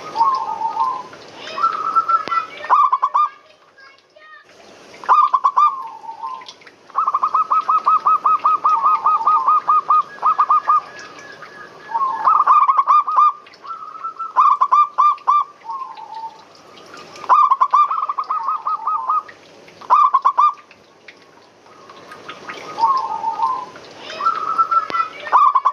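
Zebra dove (perkutut) cooing: repeated phrases of quick staccato coos with short pauses between them, including a long, rapid run of notes about seven seconds in.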